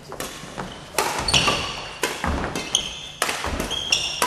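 Doubles rally in a gym hall: sharp hits and thuds about once a second, echoing, with short high squeaks from court shoes on the floor.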